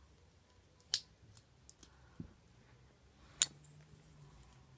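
Plastic Lego pieces clicking as they are handled and pressed together, with two sharp clicks, one about a second in and a louder one past the middle, and a few faint ticks between them.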